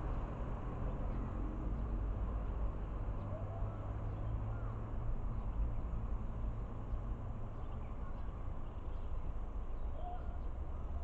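Steady low outdoor rumble with scattered faint, short bird chirps.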